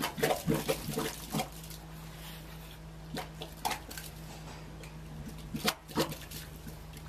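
Air from a submerged diver's hose bubbling up through thick slurry, gurgling and plopping at the surface in a quick cluster in the first second and a half and a few more bursts later, over a steady low hum.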